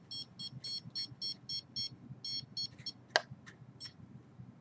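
Handheld signal-detector meter beeping its readings: rapid high-pitched beeps, about five a second, pausing briefly about two seconds in and stopping soon after. A single sharp click follows about three seconds in.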